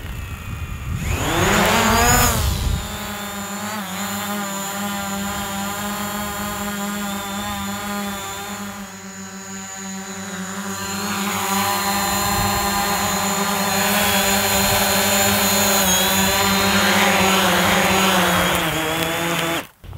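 Small folding quadcopter drone: its propellers spin up with a rising whine as it lifts off, the buzz fades as it flies off, and it grows louder again as it comes back and lands. The motors cut off abruptly just before the end.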